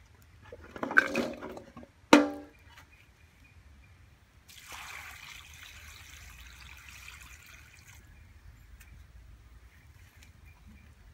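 Pieces of cut cassava tumble from a bowl into a metal wok, followed just after two seconds in by one sharp metallic clang that rings briefly. From about four and a half seconds in, water is poured from a steel bowl into the wok for about three and a half seconds.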